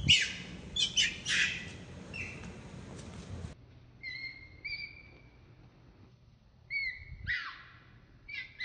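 Baby macaque screaming: a string of shrill squeals, some held on one pitch and others sweeping steeply down, coming in clusters with a quieter gap around the middle.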